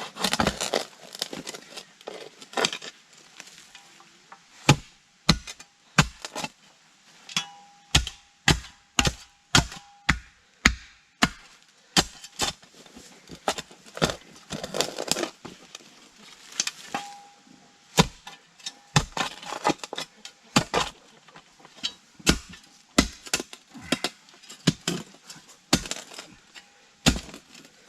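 Spade striking and chopping into hard, rocky clay soil while digging a post hole: a long series of sharp strikes, about one or two a second, with a short lull a few seconds in. The blade is chipping at rocks in the ground.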